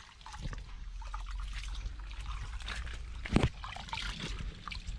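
Rice being washed by hand in a metal pot of water: small splashes and trickling as fingers stir the grains, with a louder bump about three and a half seconds in.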